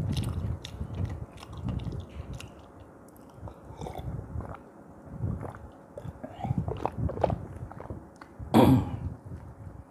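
Close-miked eating sounds from fish head soup: chewing, lip smacks and wet mouth clicks, with one louder mouth sound lasting under half a second near the end.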